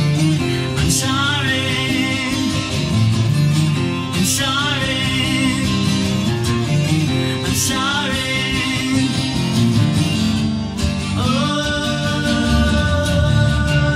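Twelve-string acoustic guitar strummed steadily in an instrumental stretch of a song. Over it come three short wavering sung notes about three seconds apart, then a long held note near the end.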